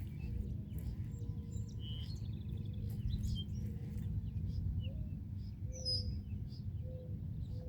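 Small birds chirping on and off, with a short rapid trill about two seconds in and a falling chirp near six seconds, over a steady low background rumble.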